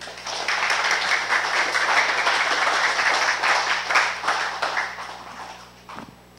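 Audience applauding: the clapping starts at once, holds strong for about four seconds, then dies away.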